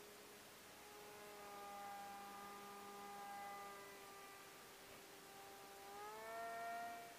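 A high-flying RC model jet's motor giving a faint, steady whine that climbs in pitch about six seconds in.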